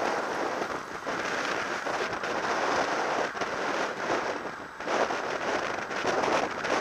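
Wind rushing over an action camera's microphone on a bicycle at racing speed: a steady noise that swells and dips.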